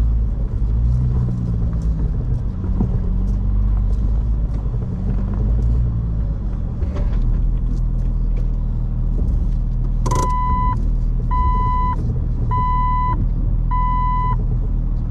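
Jeep Wrangler LJ engine running at low speed while the vehicle inches back and forth with a trailer. About two-thirds of the way in there is a click, then four evenly spaced electronic beeps from the vehicle.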